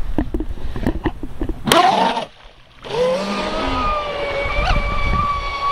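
Splashes and knocks of an RC boat being handled in shallow water, then a brief loud rising burst. After a short gap, the Pro Boat Sonicwake V2's brushless Rocket 4074 2250kv motor runs at speed: a high whine that rises in pitch and then holds steady.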